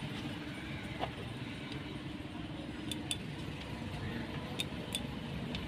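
Steady low background rumble with a few light, sharp clicks as the plastic cordless screwdriver is turned over in the hands.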